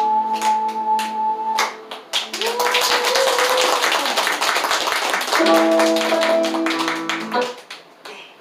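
An ocarina holds a final long note over a recorded accompaniment while the audience claps in time; the note stops about a second and a half in. Loud applause follows, with the accompaniment's last sustained chords sounding under it before it all dies away near the end.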